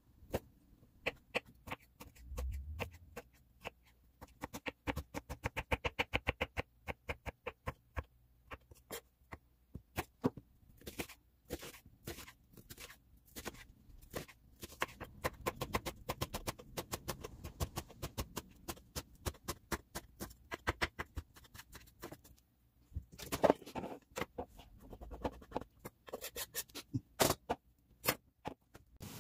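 Kitchen knife chopping on a wooden cutting board: runs of sharp knocks, several a second at the fastest, as the blade minces green onion.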